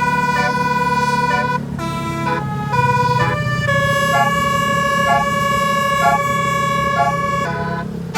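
Basuri telolet bus horn, a multi-tone air horn, playing a tune: held notes that step up and down in pitch, then one long note held through most of the second half. A steady low hum runs underneath.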